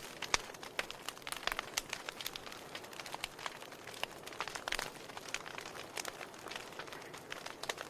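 Wood fire burning in a fireplace, crackling: irregular sharp pops and snaps over a soft steady hiss.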